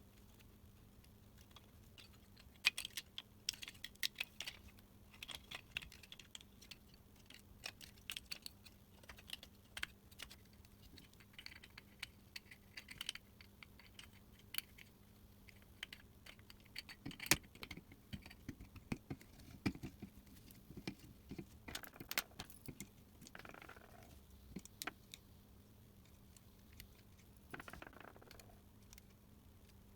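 Irregular small clicks, taps and rattles of hard plastic parts and small hand tools being handled during work-light disassembly or reassembly, with a few louder knocks in the middle.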